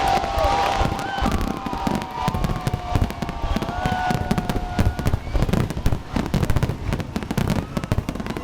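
Fireworks display: dense, rapid bangs and crackling from bursting shells, one on top of another, over a low rumble.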